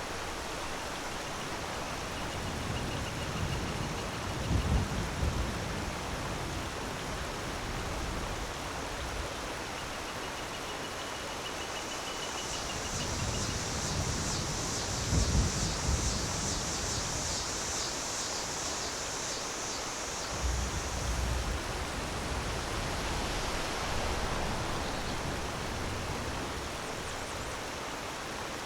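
Waterfall rushing steadily, with low rumbling swells a few times and a brighter high hiss through the middle stretch.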